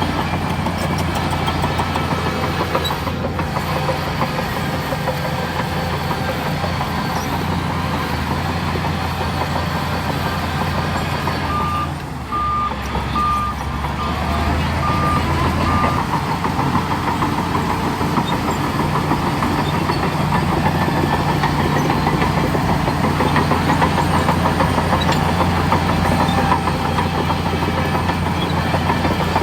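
Heavy diesel earthmoving machinery running steadily under load. About halfway through, a reversing alarm gives a string of short, evenly spaced beeps.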